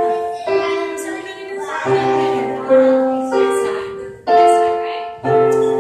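Piano or keyboard music: sustained chords that change about once a second.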